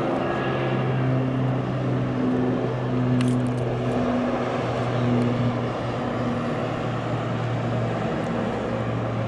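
Wildland fire engine driving along a freeway: a steady low engine drone over tyre and traffic noise.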